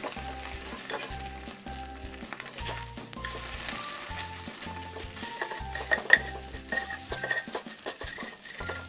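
Beaten eggs sizzling in a nonstick frying pan while a nylon spatula pushes, folds and chops the setting omelette into pieces, with scrapes and taps against the pan, strongest about six seconds in. Background music plays under it.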